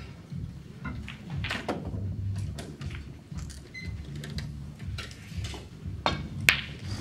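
Snooker cue tip striking the cue ball in one sharp click near the end, just after a lighter click, over low room rumble and a few faint ball clicks.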